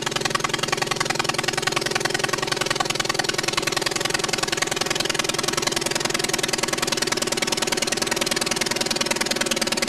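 A light aircraft's piston engine running at a steady speed, with a fast, even pulse.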